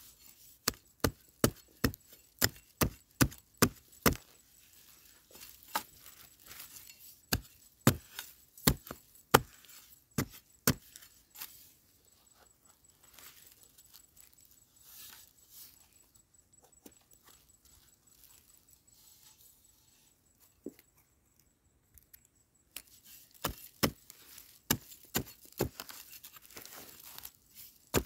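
A hand digging tool chopping into soil and roots in repeated sharp strikes, about two a second at first, then more spread out. After a quieter stretch with faint scraping, another run of strikes comes near the end. This is a wild yam tuber being dug out by following it down into the ground.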